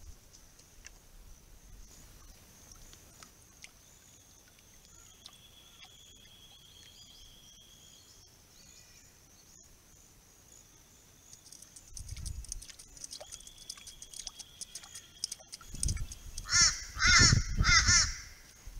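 A crow cawing three times in quick succession near the end, harsh and loud, over a faint steady high-pitched drone.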